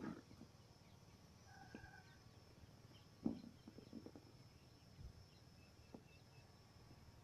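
Near silence outdoors: a faint steady high tone, a short distant call about one and a half seconds in, and a few soft knocks, the loudest a little past three seconds in.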